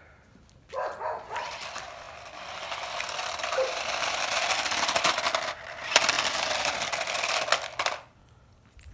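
Small toy RC car driving over rough concrete, its electric motor whirring and plastic wheels rattling on the surface for about seven seconds. The sound briefly drops away around five and a half seconds in before starting up again with a sharp click.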